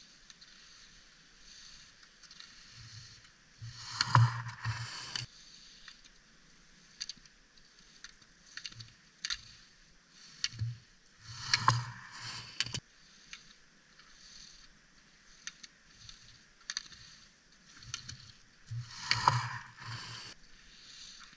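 Slalom skis carving past on hard-packed snow three times, about seven or eight seconds apart: each pass a loud scraping hiss of ski edges on snow with a low thump. Sharp clacks come with the passes, and the last pass knocks a gate pole aside.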